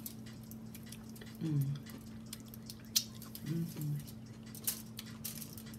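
A person eating: chewing with small wet mouth clicks and smacks, and two short hummed "mm" sounds of enjoyment, about a second and a half in and again around three and a half seconds in.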